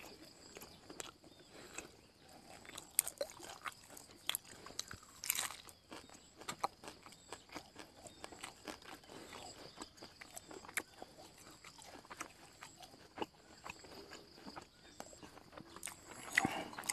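A person chewing fish laab and raw herbs close to the microphone: many small wet mouth clicks and crunches, a few of them louder, with a faint steady high-pitched tone behind.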